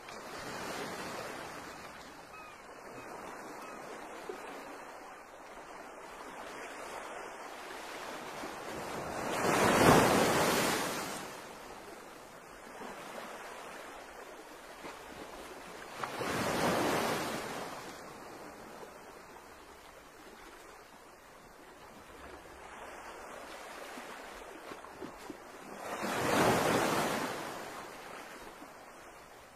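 Seaside rush of wind and water with no voice or music. It is a steady wash that swells loudly three times, about ten, sixteen and twenty-six seconds in, each swell lasting about two seconds.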